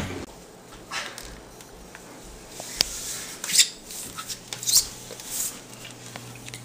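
A few faint rustles and soft clicks from someone moving about on a tiled kitchen floor, with one sharper click about three seconds in.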